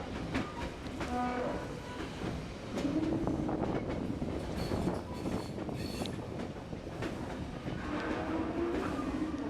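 Passenger train running along the track, with wheels clicking over the rails and a steady rumble. A held low tone sounds twice: once about three seconds in and again near the end.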